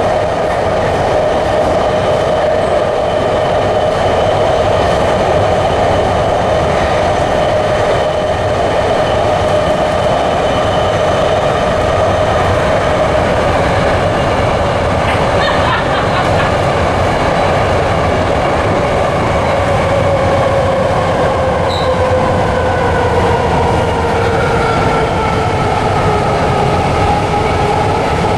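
Interior ride noise of a BART Fleet of the Future car in motion: a steady rumble of wheels on rail under the electric traction motors' whine. The whine slowly falls in pitch over the second half as the train slows.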